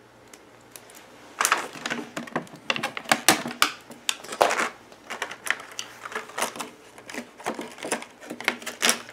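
Thin white plastic packaging tray crackling and clicking as it is handled and flexed, with a dense, irregular run of sharp clicks starting about a second and a half in.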